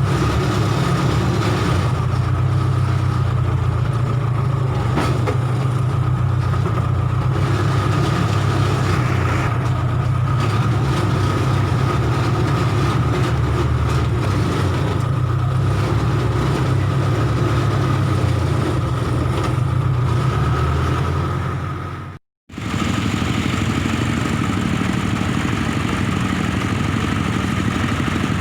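Case 580K backhoe loader's diesel engine running steadily under work, with a steady high whine over the engine note. The sound cuts out for a moment about 22 seconds in and comes back with a slightly different tone.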